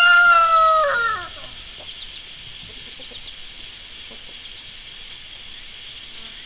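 A rooster crowing: one long held call that drops in pitch and ends about a second in.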